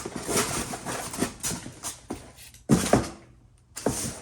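Handling of a boxed gasket set and its packaging: rustling and small knocks, with two louder thumps a little under three seconds in.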